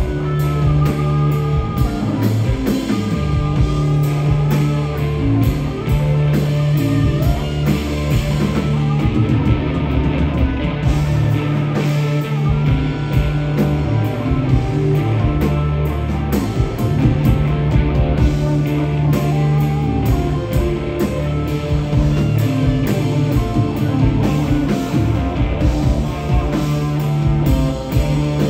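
Four-piece rock band playing live: two electric guitars over bass and a drum kit keeping a steady beat.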